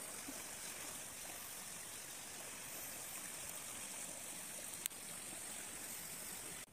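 Steady rushing hiss of the Prut River flowing, with a single brief click about five seconds in.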